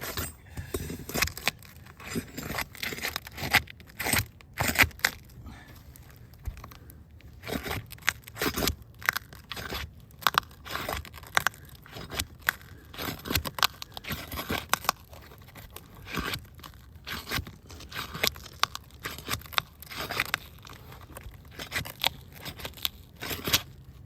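Roof shingles being pried and pulled apart, with irregular scraping, tearing and crunching strokes as they are worked loose. The shingles are stuck to one another by mat transfer, so they tear rather than slide out.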